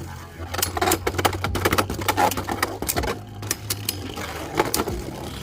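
Beyblade Burst spinning tops whirring in a plastic stadium, clashing with rapid, irregular clicks and knocks.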